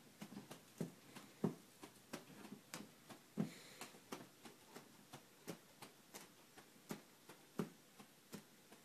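A kitten's paws and claws on a sofa as it jumps and scrambles: irregular light taps and scratches, with a few heavier soft thuds from landings.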